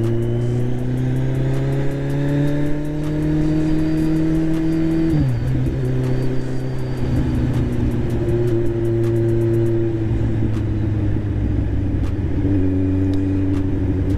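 Kawasaki Z1000's inline-four engine through an SC Project aftermarket exhaust, revs climbing steadily for about five seconds, then dropping sharply, as at a gear change, and running fairly even, with another step near the end. The exhaust is fitted without its connecting pipe; the rider finds it sounds alright but expects it smoother once the pipe is on.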